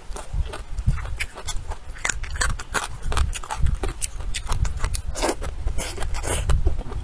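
Close-miked mukbang eating of saucy braised eggplant and chicken with chopsticks: wet chewing and lip-smacking with a quick, irregular run of mouth clicks, and a couple of longer slurps about five and six seconds in.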